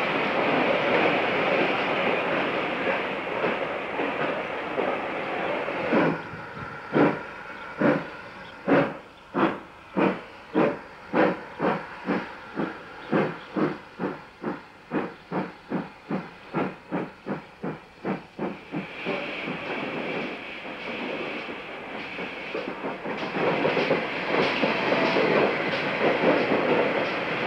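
Steam tank locomotive hissing steadily, then pulling away with exhaust chuffs that quicken from about one a second to two or three a second and grow fainter as it goes. Steady steam hiss and train running noise take over again for the last several seconds.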